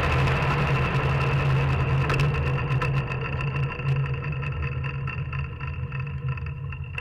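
Soapbox cart rolling on tarmac, heard from on board: a steady low rumble from the wheels under a rushing hiss that thins out after a couple of seconds as the cart slows, with frequent small rattles and clicks from the body.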